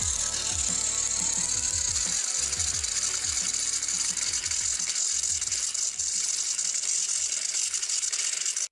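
Two battery-powered Plarail toy locomotives pushing nose to nose on plastic track, their small motors whining and gearboxes clicking and ratcheting as the wheels slip. The sound cuts off abruptly at the end.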